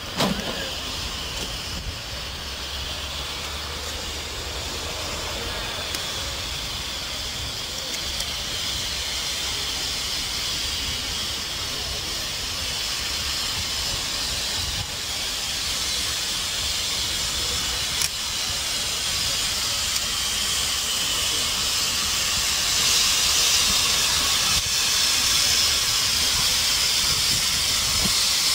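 BR Standard Class 9F 2-10-0 steam locomotive No. 92203 hissing steam as it runs slowly in, with steam blowing from its open cylinder drain cocks. The steady hiss grows gradually louder as the engine draws near.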